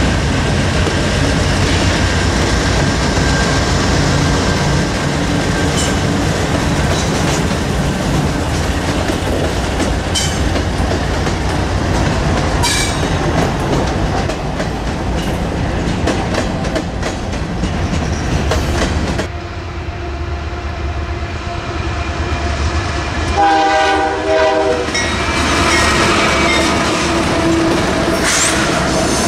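Train passing close by, its wheels clattering and clicking over the rails, with the locomotive horn sounding over the last few seconds.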